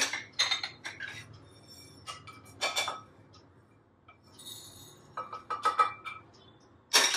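Roasted whole spices being scraped with a wooden spatula out of a stainless steel frying pan into a small glass jar. Several sharp clinks of pan and glass, the loudest at the start and near the end, with scraping and the spices sliding out between them.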